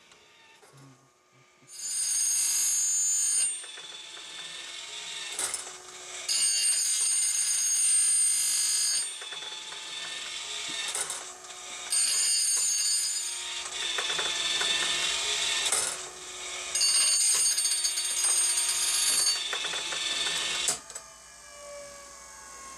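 Electric saw-chain grinder grinding the cutters of a ripping chain, in four loud passes a few seconds long with steady high-pitched tones and quieter mechanical clicking between them. The grinding stops near the end.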